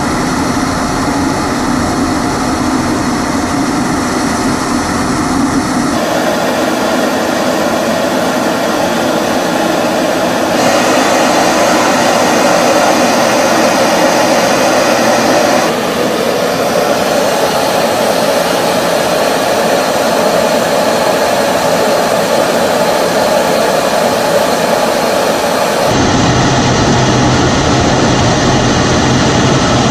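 Steady jet engine and rushing airflow noise heard from inside a fighter jet's cockpit in flight. Its tone changes abruptly several times.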